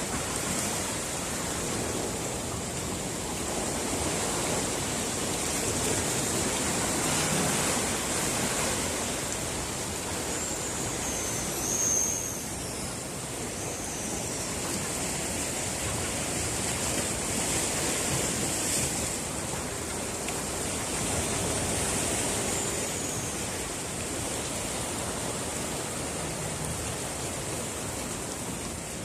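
Black guillemots giving a few faint, high, thin wheezy whistles, a cluster about a third of the way in and one more later, over a steady wash of sea surf and wind.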